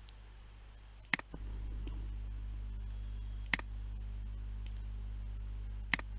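Three sharp single clicks of a computer mouse, about two and a half seconds apart, over a steady low hum that starts about a second in.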